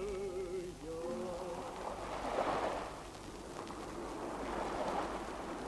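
Soft rushing noise that swells and ebbs about every two and a half seconds. A faint held musical tone fades out in the first second or two.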